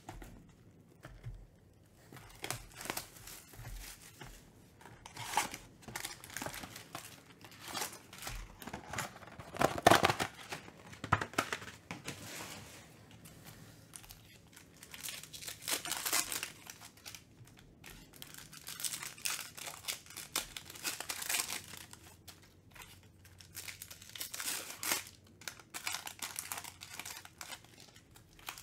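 Foil wrappers of Panini Mosaic football card packs crinkling and tearing as they are handled and ripped open, in irregular bursts, the loudest about ten seconds in.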